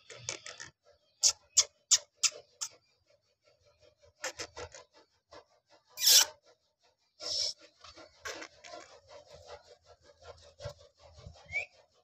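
Alexandrine parakeet making sharp clicks and scraping sounds at uneven intervals, with a louder harsh squawk about six seconds in and a short rising chirp near the end, between its spoken phrases.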